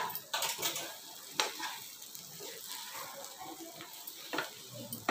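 Flat spatula stirring and scraping spiced raw banana pieces around a frying pan, a few sharper scrapes against the pan standing out over a light, steady sizzle.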